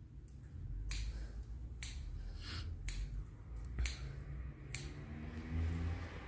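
Steel hair-cutting scissors snipping hair, five crisp snips about a second apart, over a low background hum.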